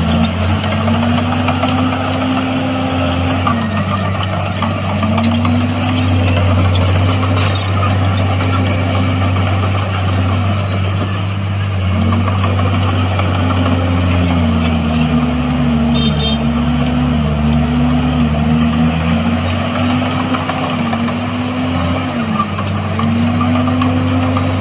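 Heavy earthmoving machine's diesel engine running continuously under working load, its engine speed dipping and rising again several times.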